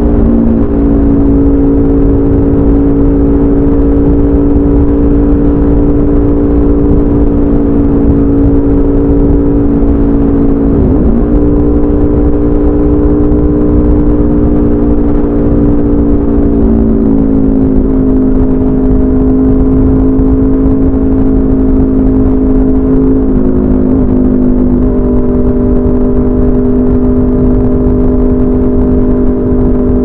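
Aprilia RSV4 RF's V4 engine, through an SC Project CRT exhaust with the catalytic converter removed, running loud and even at steady highway speed, with wind rush underneath. The pitch dips briefly about eleven seconds in, settles a little lower around seventeen seconds, and wavers again around twenty-four seconds.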